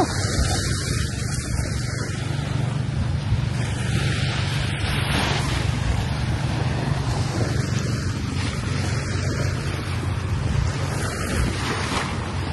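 Steady wind blowing on the microphone, a low rumble over the wash of small waves on a sandy beach.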